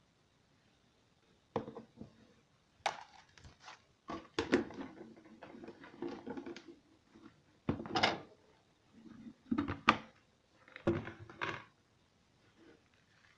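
Kitchen utensils and dishes being handled: a series of knocks and clatters, with a few sharper clinks near the middle and toward the end.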